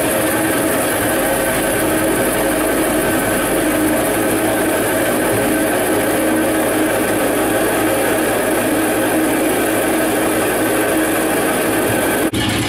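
Piston aircraft engine running steadily at an even pitch. Near the end the sound cuts off abruptly and a different engine sound takes over.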